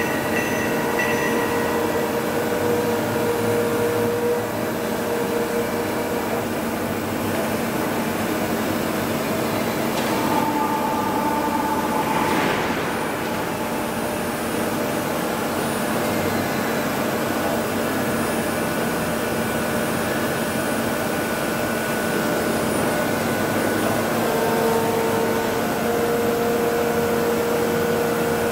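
Union BFT 102 CNC horizontal boring machine running: a steady mechanical hum with motor whines that come and go, one rising briefly in pitch about twelve seconds in.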